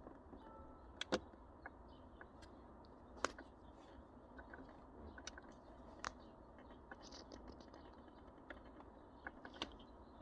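Faint, irregular clicks and light taps of small plastic shifter parts being handled and fitted together, with a sharper click about a second in and another about three seconds in.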